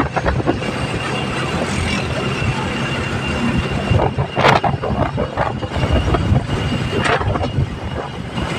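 Motorcycle tricycle's engine running steadily on the move, with road noise and two sharp rattling knocks, one about halfway and one near the end.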